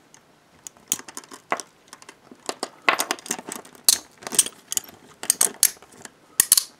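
Key fumbling in the lock of a pair of Hiatt 1960 handcuffs: a series of irregular sharp metallic clicks and rattles as the key is felt into position to set the double lock.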